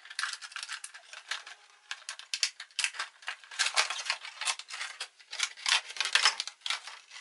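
Clear plastic blister packaging crinkling and clicking as fingers pry it open, a fast irregular run of sharp crackles.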